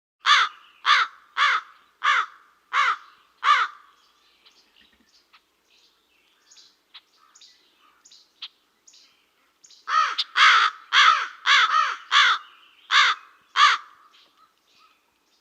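A crow cawing: six caws about half a second apart, a few seconds of faint soft calls and clicks, then a second, denser run of about nine caws near the end.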